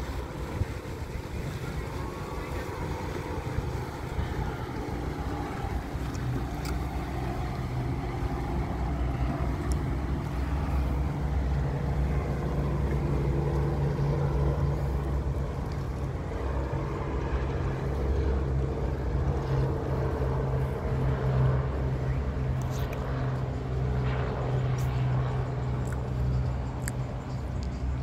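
A motorboat's engine running steadily, a low hum that grows a little louder through the middle and then holds.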